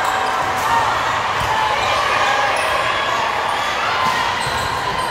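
Indoor volleyball rally in a large gym hall: sharp ball contacts and short squeaks of athletic shoes on the court floor over steady background crowd chatter.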